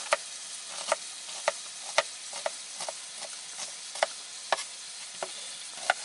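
Meat and green peppers sizzling in a frying pan, making kavurma: a steady frying hiss with sharp clicks about twice a second.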